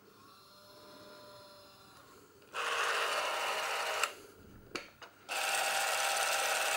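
The small electric motor of a Bauer C 1 M Super Super 8 camera running in two short whirring bursts of about a second and a half each, starting and stopping abruptly, with a couple of sharp clicks in between as the cartridge door is opened.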